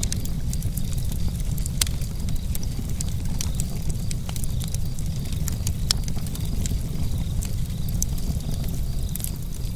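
Campfire crackling: irregular sharp pops and snaps over a steady low rumble of the burning fire.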